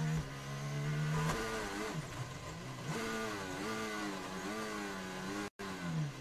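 Red Bull RB18 Formula 1 car's 1.6-litre V6 turbo-hybrid engine heard over the team radio, holding a steady note at first and then rising and falling unevenly, with a brief cut-out of the radio audio near the end.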